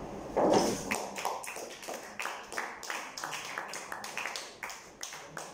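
A run of sharp, irregular clicks, about three a second, after a louder short noise about half a second in.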